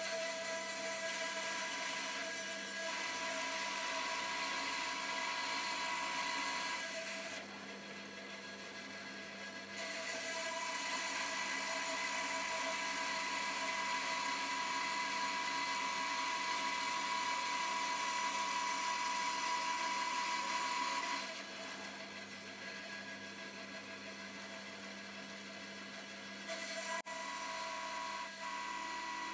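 Bandsaw running with its blade cutting through the resin of a Dalle de Verre panel of thick slab glass, a steady whine that grows louder while the panel is pushed into the cut. It eases twice to a lighter run between cuts, and there is a sharp click near the end.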